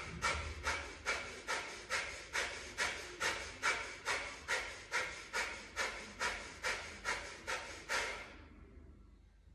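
A woman's rapid, forceful exhalations through the nose, about two sharp puffs a second, stopping about eight seconds in: a nasal breathing round meant to clear mucus.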